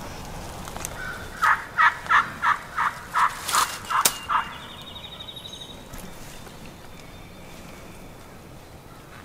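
A wild turkey call worked by hand, giving a run of about nine evenly spaced hen yelps, roughly three a second, to coax a gobbler in.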